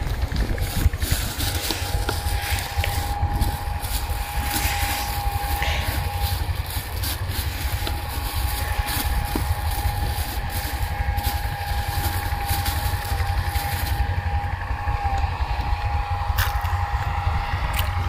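Plastic buckets and lids being handled, giving a few light knocks and rustles. Under them runs a steady low rumble with a constant thin hum.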